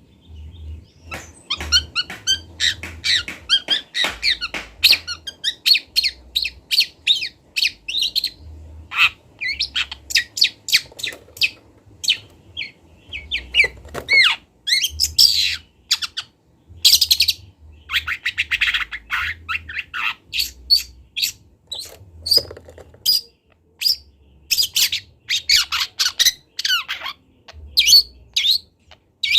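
Juvenile long-tailed shrike singing a rapid, varied string of chirps and sharp notes that begins about a second in and breaks off for short pauses now and then: a young bird still learning its song.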